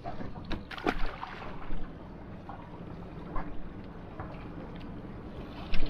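Small fishing boat's engine ticking over, a steady low hum, with a few knocks and clicks from handling on board.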